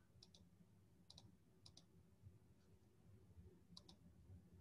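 Faint computer mouse clicks over near-silent room tone: four quick pairs of clicks spread out over a few seconds.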